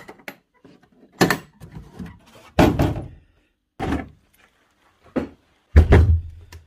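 Knocks and thuds from a Bosch GSH16 demolition hammer and its coiled power cable and plug being picked up and set down on a concrete floor, about five irregular bumps with the heaviest, lowest thump near the end.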